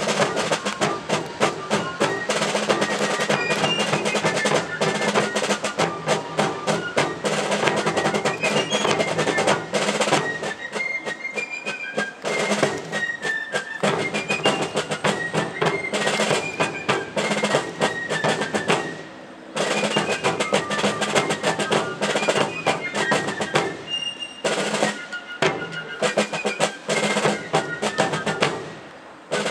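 Fife and drum corps playing a march: rapid snare drum strokes and rolls under a high fife melody. The music breaks off briefly about two-thirds of the way through, then starts again.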